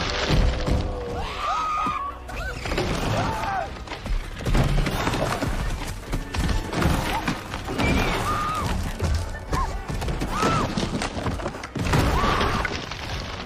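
Film soundtrack: dramatic orchestral music over the heavy thuds and crashes of a dinosaur stampede, with repeated short rising-and-falling animal cries.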